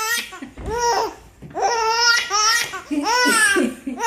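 Baby laughing in about four high-pitched bouts with short breaths between them.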